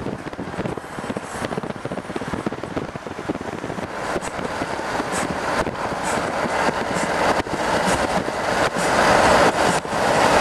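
Road and wind noise inside a moving road vehicle travelling at speed, with frequent short knocks and rattles, growing gradually louder.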